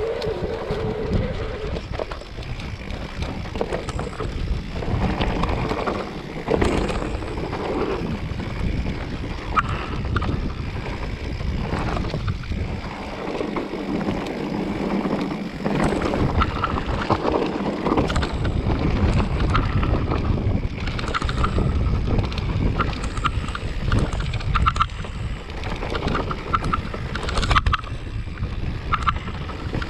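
Wind buffeting the microphone of a camera on a mountain bike as it rides down a rough dirt track, with a steady tyre rumble and frequent rattling clicks and knocks from the bike over ruts and stones.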